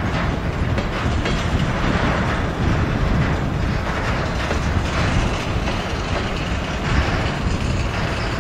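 Norfolk Southern covered hopper cars of a grain train rolling past: steady wheel-on-rail rumble with scattered clicks from the wheels.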